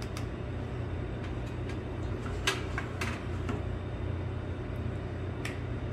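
A few light clicks and knocks of kutsinta molds and a steamer being handled, over a steady low background hum.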